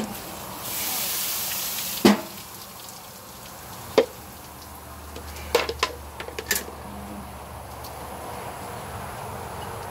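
A sharp hiss lasting just over a second, ending in a knock, then single sharp knocks about four seconds in and a quick run of clicks and clanks around six seconds in.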